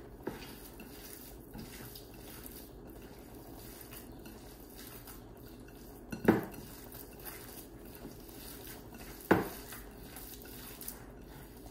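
Hands kneading raw minced beef in a glass mixing bowl: quiet handling of the meat, with two sharp knocks of the glass bowl, one about six seconds in and another about three seconds later.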